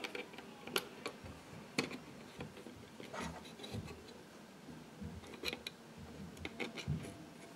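Scattered light clicks, taps and rubbing of plastic on metal as a replacement blower fan is handled and seated inside a late 2012 Mac mini's case, about half a dozen small clicks spread over several seconds.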